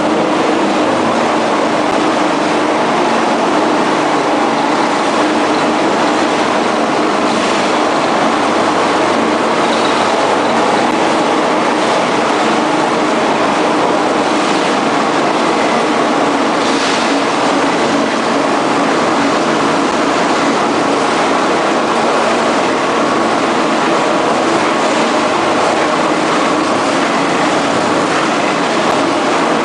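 Soap production-line machinery running: a steady, continuous mechanical noise with a low hum, unchanging throughout.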